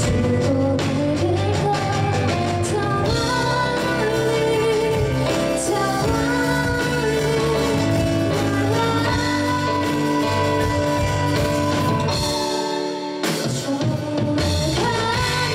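Live rock band performing a song: a woman sings the melody over electric guitars, bass guitar, drum kit and keyboard. About thirteen seconds in, the bass and drums drop out for a moment before the full band comes back in.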